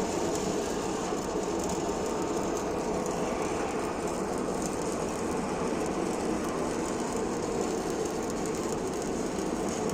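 Steady industrial noise, an even hiss and rumble that runs without pauses.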